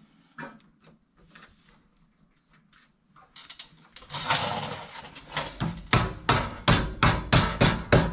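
Rubber mallet tapping a rubber exhaust-hanger isolator onto its hanger peg, a fast even run of about four blows a second that starts about five and a half seconds in. Just before the blows there is a brief rubbing noise.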